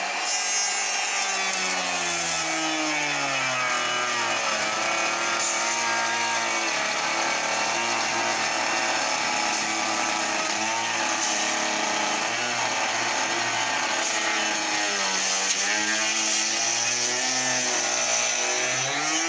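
Electric woodworking power tool running continuously, its motor pitch dipping and recovering every few seconds as the tool is pushed into the wood and eased off.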